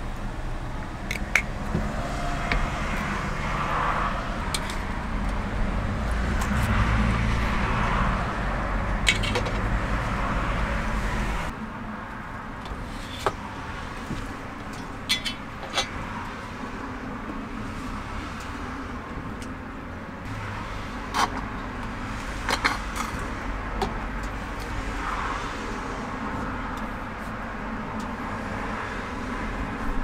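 Steady low vehicle running noise, heavier for the first eleven seconds or so and then dropping abruptly to a quieter level, with scattered sharp clicks and taps.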